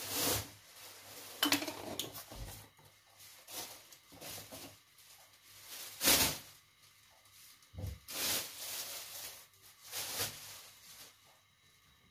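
Kitchen utensils and cookware clattering now and then: about ten short, irregularly spaced knocks and scrapes, the loudest about six seconds in.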